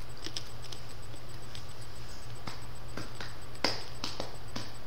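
Mouth sounds of someone eating a hard-candy lollipop: scattered small clicks and crunches, with one sharper crack about three and a half seconds in. A steady electrical hum runs underneath.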